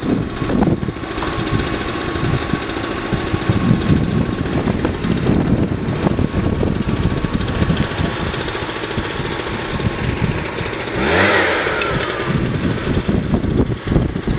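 Small engine of a motorized pollen blower running steadily at working speed, blowing date-palm pollen up into the palm crowns, with a brief falling whine about eleven seconds in.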